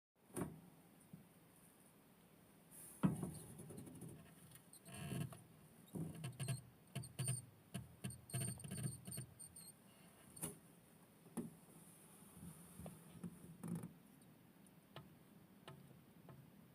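Cream Syrian (Kinkuma) hamster making an irregular run of small, sudden sounds, the loudest about three seconds in, which the owner cannot tell apart as sneezes or hiccups.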